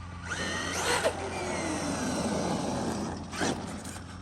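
RC truck's brushless electric motor whining up in pitch as it accelerates hard, then winding down in pitch as it slows, over road and tyre noise, with a brief louder burst about three seconds in.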